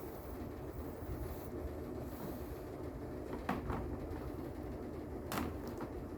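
A few light clicks from an RJ45 plug and UTP cable wires being handled, over a steady low background rumble.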